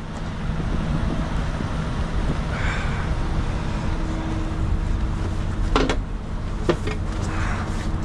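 Semi-truck diesel engine idling steadily at close range, with two sharp knocks about six and seven seconds in.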